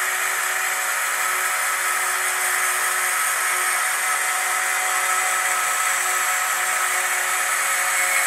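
Electric lift motor of a model dump truck's tipper bed, running steadily with a whirring whine as it lowers the raised bed.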